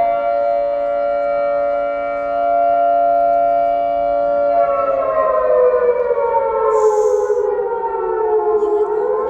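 Air-raid siren wailing as an air-raid warning. It holds one steady tone, then about halfway through its pitch slowly falls, and it begins to rise again near the end.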